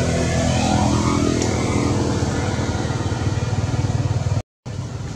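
A vehicle engine running steadily with a low, even hum, cutting out for a moment near the end.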